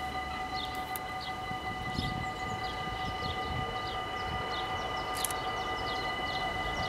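Dutch level-crossing warning bell ringing steadily as one continuous, unchanging tone while the barriers are down. Short high chirps, like a small bird, repeat over it.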